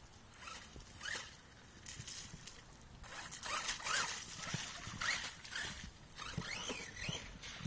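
Brushless electric motor of a 1/8-scale RC monster truck whining up and down in pitch in short throttle bursts, several times, while its tyres churn through mud and puddles.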